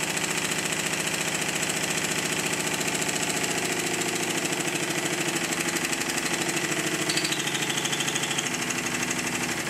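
Stuart triple expansion model steam engine running on high-pressure compressed air, with only its high-pressure and intermediate cylinders connected. It gives a rapid, even train of exhaust beats at a steady speed.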